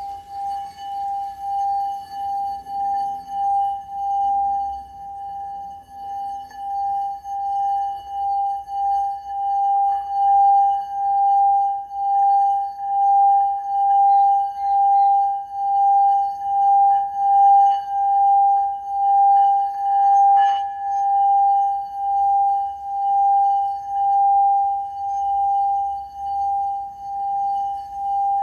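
Singing bowl sounding one steady, ringing tone with fainter overtones. The tone swells and fades in an even pulse, a little more than once a second, with a brief click about twenty seconds in.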